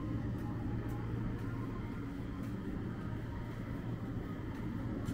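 Steady low hum with faint footsteps about twice a second.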